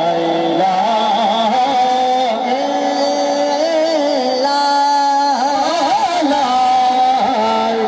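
Devotional Punjabi kalam music without words: a melody of long held notes that bend and waver up and down.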